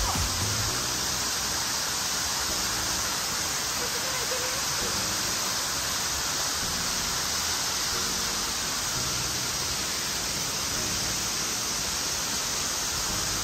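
Shallow mountain river rushing steadily over rocks, heard close to the water surface.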